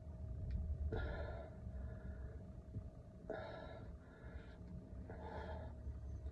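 A man's hard, effortful breathing during dumbbell overhead presses: three forceful exhales about two seconds apart, over a steady low hum.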